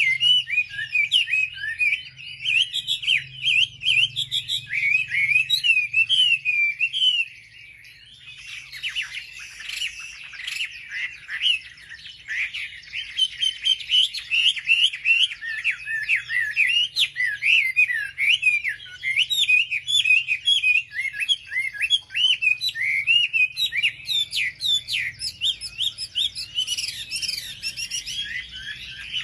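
Wambi birds singing: a dense, fast run of short chirps and sliding whistled notes that goes on without a break, dipping softer about seven seconds in before picking up again.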